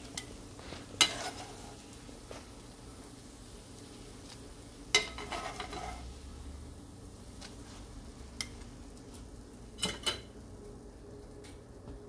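Metal tongs clacking against a frying pan and a ceramic plate as pancakes are lifted out and laid down: a few separate sharp clacks spread out over several seconds, over a faint sizzle from the hot, oily pan.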